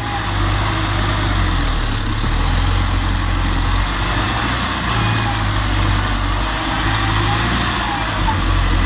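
LKT 81 Turbo skidder's diesel engine running steadily, with a low throb that swells and eases a little.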